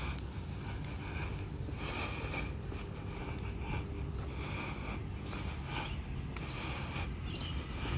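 Footsteps and rustling close to the microphone while walking, with irregular scraping bursts over a steady low rumble.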